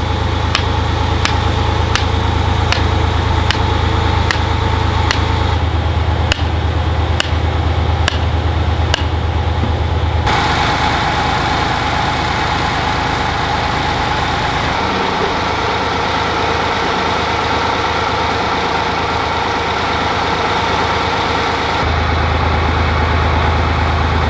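Excavator's diesel engine running, with a sharp ding-like tick about every 0.7 s for the first ten seconds. About ten seconds in the low engine hum gives way to a busier, noisier sound as the machine works. Near the end it settles back to a steady idle.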